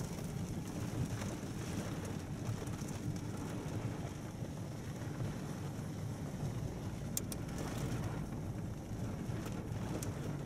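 Steady rumble of a car driving through heavy rain, heard from inside the cabin, with rain and wind noise on the windshield. A couple of brief sharp ticks come about seven seconds in.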